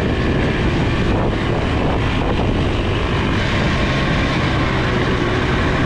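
Trail motorcycle engine running steadily while the bike is ridden along a dirt track.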